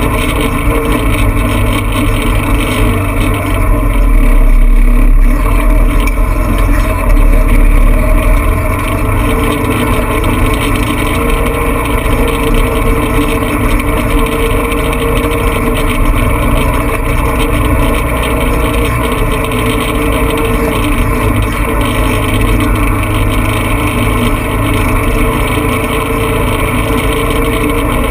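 Engine of a 4x4 vehicle running steadily as it drives slowly along a rough dirt track. A louder low rumble comes in from about four to eight seconds in.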